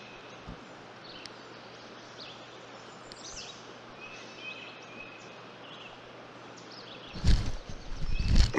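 Small songbirds chirping again and again over a steady outdoor rush. About seven seconds in, loud low rumbling knocks and bumps hit the microphone.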